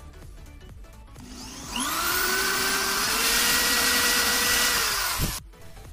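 Electric drill spinning up and boring a hole through a car's plastic rear bumper. It rises in pitch as it starts, runs steadily for about four seconds, then winds down near the end.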